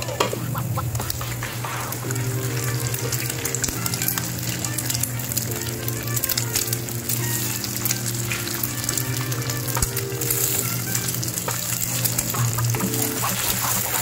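Onions and green chillies frying in oil in a non-stick pan, a steady sizzle with small crackles, and later eggs frying in with them. Near the end a wooden spatula stirs and scrapes the eggs through the pan.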